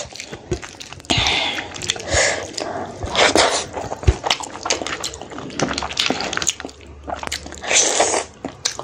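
Close-miked eating sounds: wet chewing and lip smacking as rice and curry are eaten by hand, broken by short hissing sucks about 1, 2, 3 and 8 seconds in and scattered small clicks.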